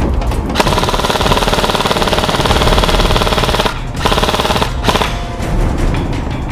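Airsoft electric rifle firing on full auto: one long burst of about three seconds, then two short bursts.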